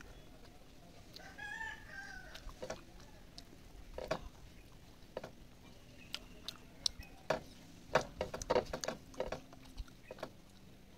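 A rooster crows once, an arched call of about a second, starting about a second in. Then a run of short sharp clicks and smacks from eating by hand, with chewing and fingers working rice on a brass plate. The loudest of these come near the end.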